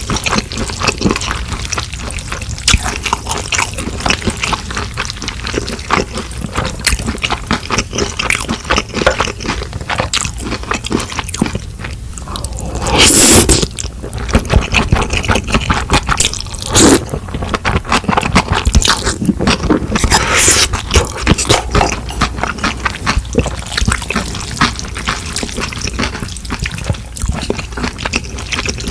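Close-miked eating sounds from a mukbang of dumplings and mixed noodles: a steady run of wet chewing clicks and smacks. A few louder noisy bursts stand out, the longest about thirteen seconds in.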